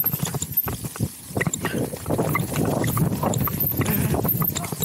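Downhill mountain bike running fast over a rough dirt trail: tyres rolling over the ground and the bike rattling, with many sharp, irregular knocks and clicks.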